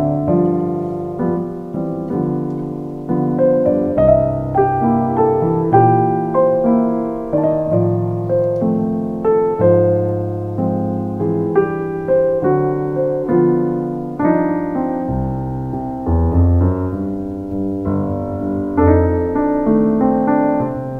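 Background piano music: a slow, gentle melody of struck notes, each fading before the next.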